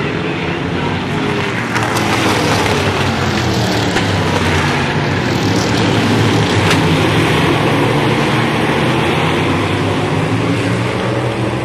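A pack of modified race cars running on the track, several engines at once, their pitch rising and falling as the cars pass and go through the turns.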